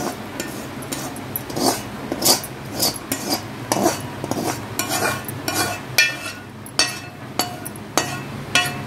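Metal spoon scraping and knocking against a kadai, with a dozen or more irregular clinks and scrapes, some ringing briefly, as roasted grated coconut is scraped out onto a steel plate.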